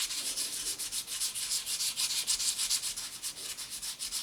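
Wet sandpaper rubbed by hand over a flat aluminium heat sink: a steady rasping hiss in quick back-and-forth strokes, several a second.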